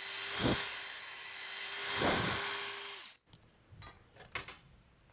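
Electric drill spinning a homemade drill-rod bit through the cleaning-rod channel of a wooden rifle fore end, knocking out old glue. It runs with a steady whine that swells and eases about every second and a half as the bit is worked in and out, and stops about three seconds in, followed by a few light clicks and knocks.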